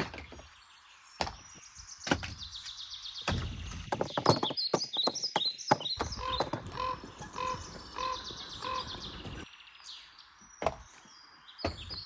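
Firewood rounds being chopped by hand: a series of irregular sharp wooden strikes and knocks, with small birds chirping throughout.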